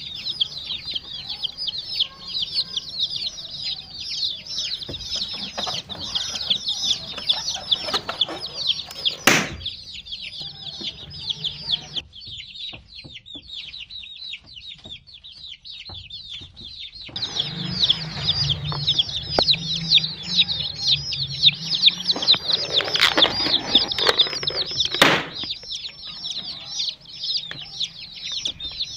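A crowd of baby chicks peeping nonstop, many short high chirps overlapping. There are two sharp knocks, one about nine seconds in and one late on, and a low hum with rustling in the second half.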